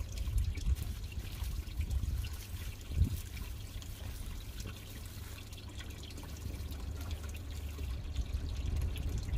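Steady trickle of water in a garden pond, under a low rumble, with one dull thump about three seconds in.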